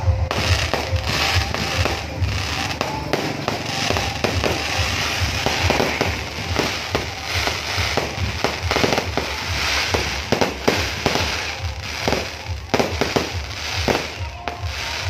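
Aerial fireworks bursting and crackling, many sharp bangs in quick succession, over music with a steady bass.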